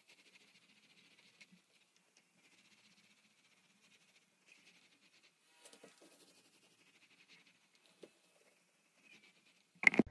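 Paint roller rolling primer onto plywood boards: a faint, sticky crackle in repeated strokes, with a few light knocks. A sharp click near the end.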